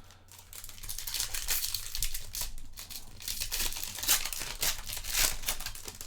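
Foil trading-card pack wrapper crinkling and tearing as a Topps Chrome hobby pack is opened by hand.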